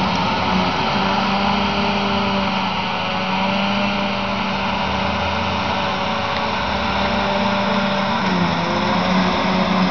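John Deere 7800 self-propelled forage harvester and John Deere tractors running under load while harvesting silage: a steady, loud engine drone. Near the end the engine tones shift as the tractor with its full trailer pulls away.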